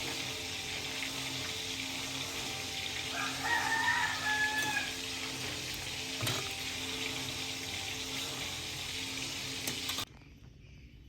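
A rooster crows once, about three seconds in, over a steady hiss that cuts off suddenly near the end.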